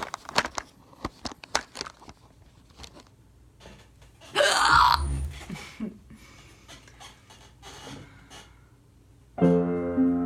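Scattered sharp clicks and knocks, then a loud noisy burst with a low thud about four seconds in; about nine seconds in, piano music starts playing steady notes.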